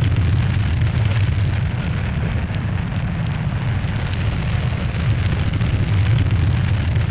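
Steady, loud, low rumbling roar: the soundtrack's effect for a spacecraft capsule's fiery entry into the atmosphere, its heat shield glowing.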